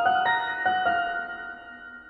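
Background piano music: a few notes played in the first second, then left to ring and fade away.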